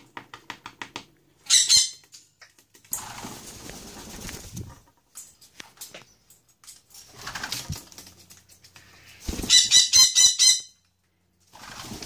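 Dusky lory screeching in two loud, harsh bursts, a short one about 1.5 s in and a longer one around 9 to 10 s in. Rapid clicks at the start, as the bird knocks its plastic toy ball with its beak.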